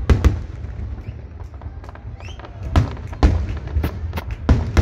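Aerial fireworks shells bursting overhead: a pair of sharp bangs right at the start, then several more from about three seconds in, over a continuous low rumble.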